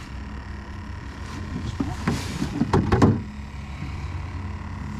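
A flurry of knocks and taps about two to three seconds in as a freshly caught redfish is handled on a small boat, over a steady low hum.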